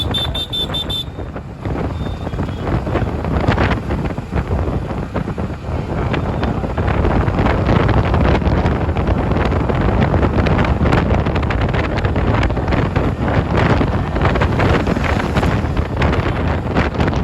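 Road traffic heard from a moving vehicle, with wind buffeting the microphone and getting louder about six seconds in. A vehicle horn beeps in quick pulses in the first second.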